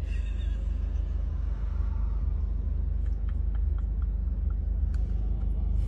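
Steady low rumble of a car running, heard from inside the cabin, with a few faint clicks in the second half.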